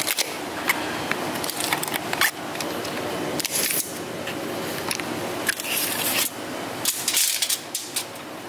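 Steel tape measure being pulled out and handled across the engine: irregular clicks and rattling scrapes, with longer scraping runs about three and a half seconds in and again about seven seconds in.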